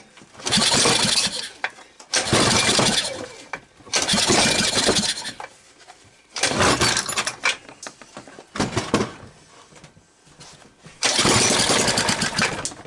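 Rebuilt 1991 Tecumseh 5 hp single-cylinder engine on its first cold start, run on starting fluid. It fires in six short bursts of a second or so, running briefly and then dying away each time between pulls.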